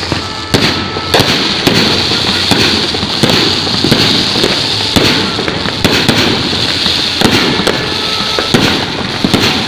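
Fireworks display: aerial shells bursting in a rapid barrage, many sharp bangs in quick succession over a steady crackling hiss.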